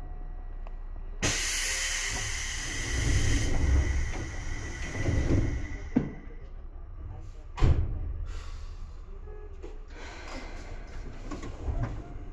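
Compressed air hissing loudly from a Seibu 2000-series electric train's pneumatic equipment, starting suddenly and fading over a few seconds, followed by two sharp thumps.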